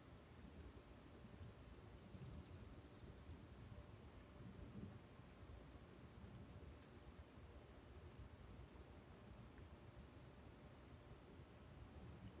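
Faint insect chirping outdoors: an even train of short, high chirps at about three a second over a steady high drone. Two sharp, high chips stand out above it, about seven and eleven seconds in.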